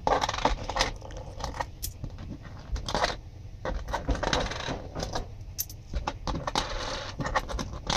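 US pennies clinking against each other and against a tabletop as they are picked up, dropped and pushed around by hand: many quick, irregular clicks with short scrapes of coins sliding across the table.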